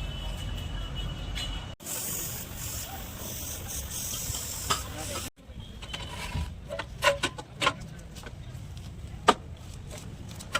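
Car body repair work: a steady high hiss for a few seconds, then a series of sharp knocks and taps.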